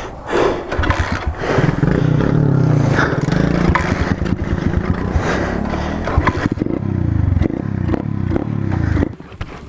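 Dirt bike engine running as the bike is ridden slowly, its pitch rising and falling with the throttle. The engine sound drops away sharply about nine seconds in.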